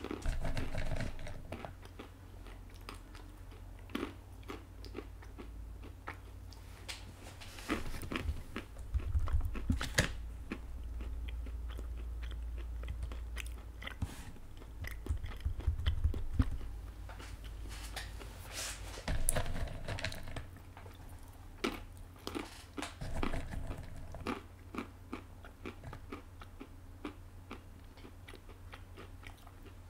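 A person chewing close to the microphone: irregular crunches and small clicks over a low steady hum.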